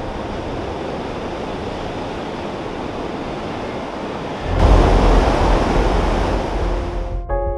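Surf breaking on a sandy beach: a steady rush of waves and wind that grows louder and deeper about four and a half seconds in. Music comes in near the end.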